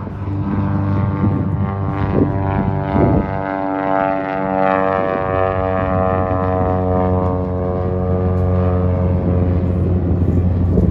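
Cessna 172 floatplane's piston engine and propeller droning steadily as it climbs out after takeoff. The pitch falls slightly as the plane passes by.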